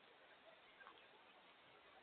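Near silence: steady faint outdoor hiss, with a faint short chirp from a small bird just under a second in.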